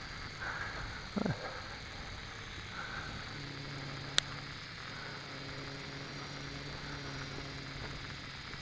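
Faint steady hum of the MJX X400 quadcopter's motors and propellers, flying high overhead, with several close pitches at once. A single sharp click sounds about four seconds in.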